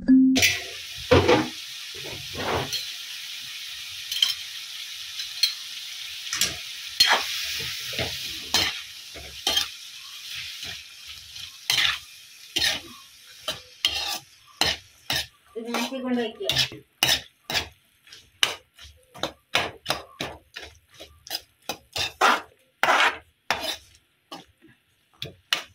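Metal spoon stirring and scraping diced carrot and onion around a hot iron wok, with irregular knocks and scrapes against the pan. The oil sizzles loudly for roughly the first ten seconds, then the sizzle fades while the spoon keeps scraping.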